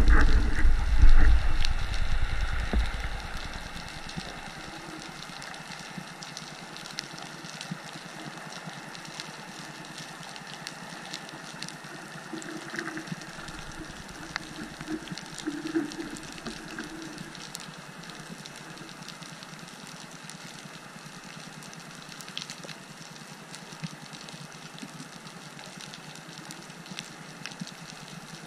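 Underwater ambience picked up by a camera on a speargun: a steady hiss with scattered faint clicks and crackles, opening with a loud low rumble in the first few seconds.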